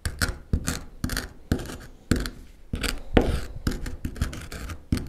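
Mastic gum (damla sakızı) being crushed to a fine powder: a rapid, uneven series of sharp knocks and scrapes, about three or four a second.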